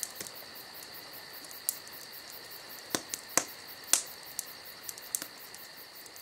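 Campfire crackling: irregular sharp pops and snaps, the loudest bunched a few seconds in, over a steady high trill of crickets chirping.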